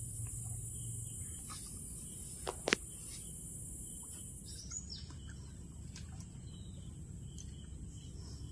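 Pond-side outdoor ambience: a steady high insect drone that stops about halfway through, over a second steady insect tone, with scattered short bird chirps. One sharp click comes a few seconds in.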